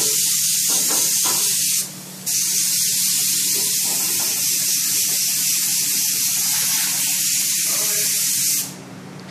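Compressed air hissing from a hand-held air hose as it blows excess flock powder off freshly flocked t-shirts, with a steady low hum underneath. The hiss breaks off for about half a second around two seconds in, then runs on until it cuts off near the end.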